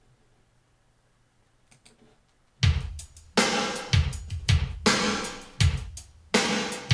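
Near silence for about two and a half seconds, then a recorded drum kit comes in with strong kick and snare hits and cymbals, about two hits a second, played back over Yamaha NS-1000M speakers driven by a TRIO KA-9300 amplifier.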